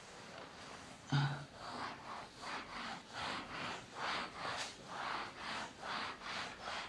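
Cloth duster rubbing across a chalkboard in quick back-and-forth strokes, about two swishes a second, as the board is wiped clean. A short louder sound comes about a second in.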